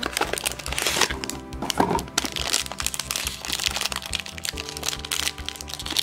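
Foil blind-box pouch and cardboard packaging crinkling and crackling as they are handled and the pouch is pulled open, over background music.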